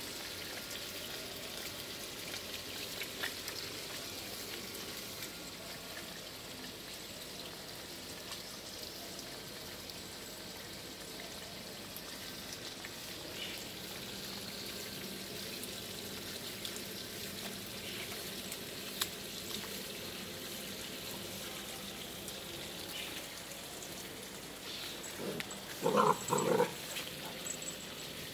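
Water running steadily from a garden hose onto wet paving, a soft even hiss. Near the end a golden retriever puppy gives a few short barks.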